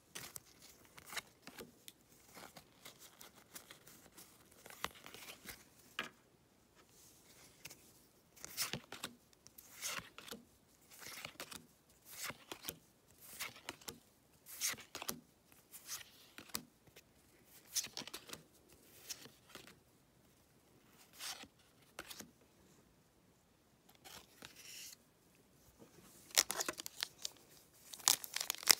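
Trading cards slid and flicked one by one from a freshly opened stack, a short papery swish about once a second. Near the end a sealed booster-pack wrapper crinkles in the hands, more densely and louder.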